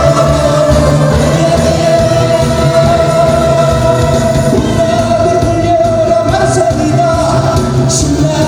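A singer performing live over musical accompaniment, holding one long note for about the first six seconds.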